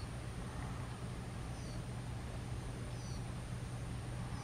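Newly fledged blue rock thrush chick giving short, thin, high calls about every one and a half seconds, each a quick falling note. A steady low hum runs underneath.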